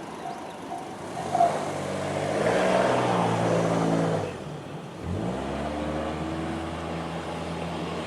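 Level-crossing warning bell, the JR standard electronic tone, striking about two and a half times a second and stopping about a second and a half in. Road cars then drive off over the crossing: one engine rising and changing pitch about two to four seconds in, and another pulling away from low revs about five seconds in.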